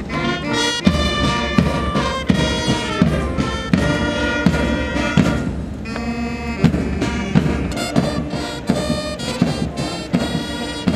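Military brass band playing, with saxophones and brass over a drum that marks a steady beat, a little under two beats a second.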